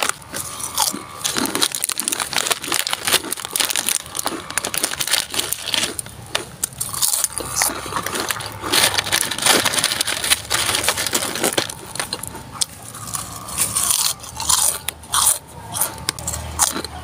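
Crisp crackers being bitten and chewed close to the microphone, a dense run of crunches, with the plastic wrapper and cracker tray crinkling and rustling in between.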